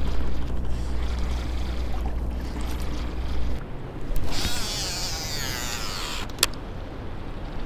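A baitcasting reel's spool whirs as a lure is cast, the whir falling in pitch over about two seconds, then a sharp click as the reel is engaged. Before the cast a low steady hum stops about three and a half seconds in.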